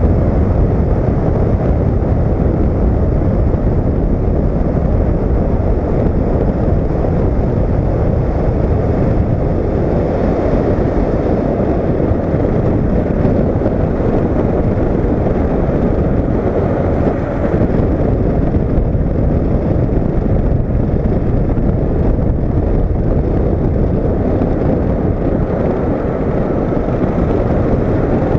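Steady rush of wind and road noise from a Honda CB500X motorcycle on the move, with its engine running underneath.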